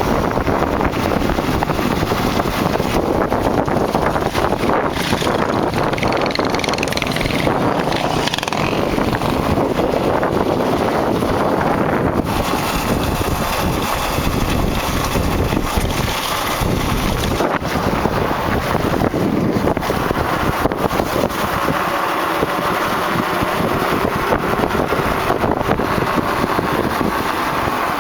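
Kawasaki KLX dirt bike coasting with its engine off: a steady rush of wind on the microphone with rolling tyre and road noise and small rattles.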